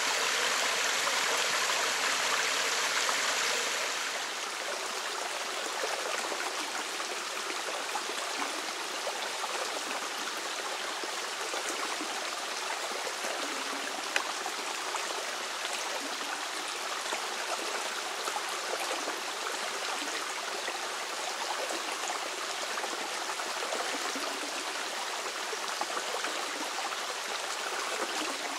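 A small woodland waterfall spilling in thin streams into a pool, a steady splashing and trickling of water. About four seconds in it drops to a quieter, steady sound of running water, with a single sharp click midway.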